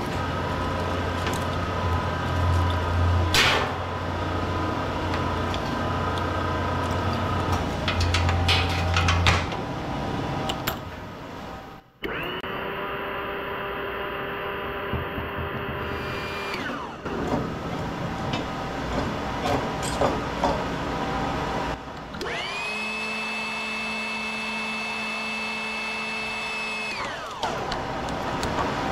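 Workshop power-tool noise: knocks and a machine running over the first ten seconds or so, then a motor twice spinning up, running steady for about four seconds and winding down.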